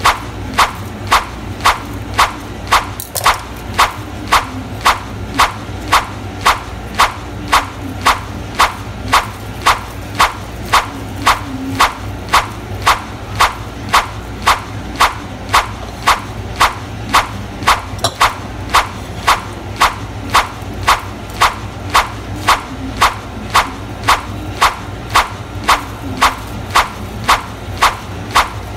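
Sharp, regular clicks a little under two a second over a steady low hum.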